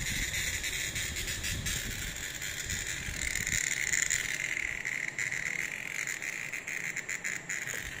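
A cicada calling: a steady, shrill buzz with a fast flutter that runs without a break and swells a few seconds in.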